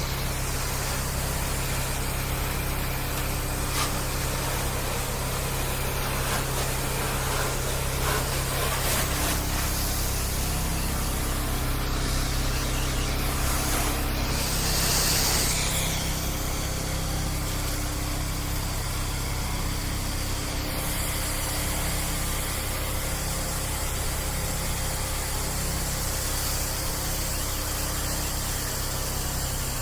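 Pressure washer engine running steadily while soft-wash solution hisses out of the nozzle and onto the house, the spray hiss loudest about halfway through.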